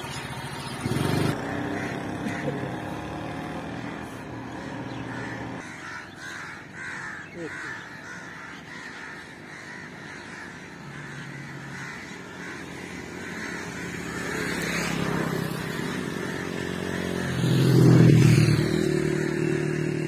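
A motorcycle engine running, growing louder to a peak about 18 seconds in as it passes along the track, with bird calls, cawing like crows, in the background.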